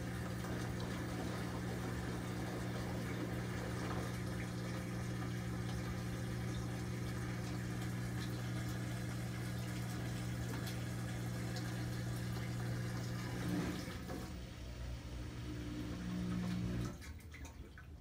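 Kenmore front-load washer's drain pump running with a steady hum while water drains. There is a brief louder moment about thirteen seconds in, and the pump stops suddenly about a second before the end.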